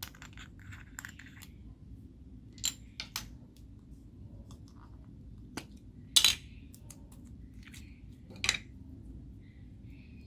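A handful of sharp clinks and taps of small hard objects being handled, set down or knocked together while slime is being mixed. The loudest knock comes just past the middle, and another strong one about two seconds later.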